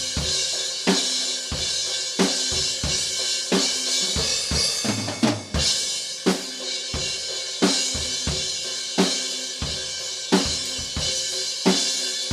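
Solo acoustic drum kit playing a metal groove: regular snare hits and kick drum under a constant cymbal wash, with a quick fill about five seconds in. The kick is played on a single pedal, not double bass.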